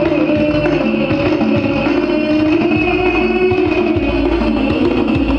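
Music played loudly through a sound system under test: a held, gliding melody line over heavy bass.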